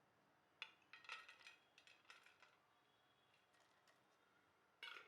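Spoon clinking against a container as crushed peanut powder is spooned into the coriander chutney: a sharp clink about half a second in, a quick run of clinks over the next second and a half, a few faint taps, then a louder clink near the end.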